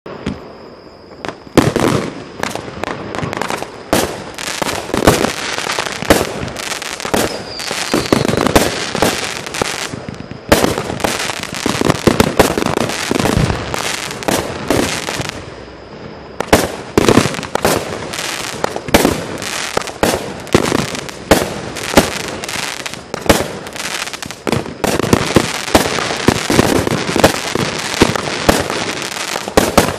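A 35-shot, 19 mm consumer fireworks cake firing: a rapid series of sharp bangs starts about a second and a half in, with a continuous crackling hiss between them. There are brief lulls near ten and sixteen seconds.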